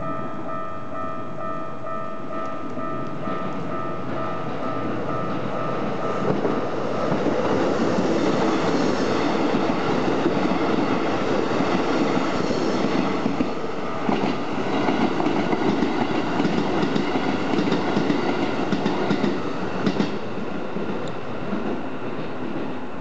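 Japanese level-crossing warning bell ringing in a rapid, even two-tone pulse. A Keikyu electric train then passes, running loudest from about seven seconds in, its wheels clacking over the rail joints with a few sharp knocks.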